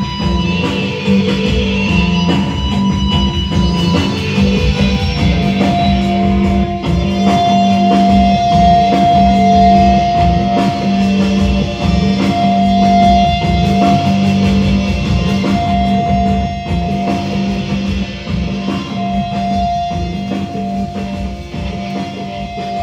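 Rock-style instrumental music with guitar and drums over a steady low note; a long held high note comes in about six seconds in, and the music tapers slightly in loudness near the end.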